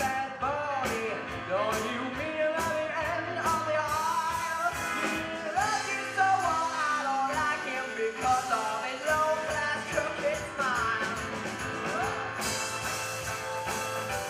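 Live band playing a song with a singing voice, accordion, keyboard, upright double bass and a drum kit keeping a steady beat.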